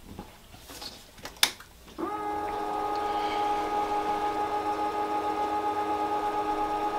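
Glowforge laser cutter being switched on: a sharp click about one and a half seconds in, then its machinery starts up about two seconds in and runs with a steady, many-toned hum.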